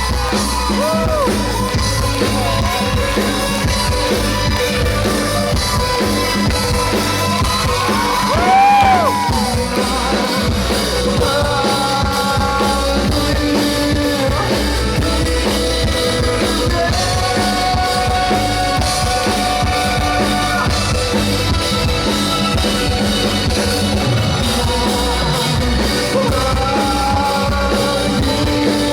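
Live rock band playing a song, with drum kit and a singing voice. There are held notes throughout and a loud swooping note about nine seconds in.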